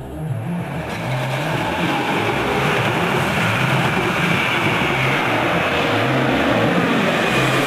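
Twin-jet airliner on low landing approach passing overhead: the jet engine noise swells from about a second in to a loud, steady rush, with a faint high whine that slowly falls in pitch as it goes over.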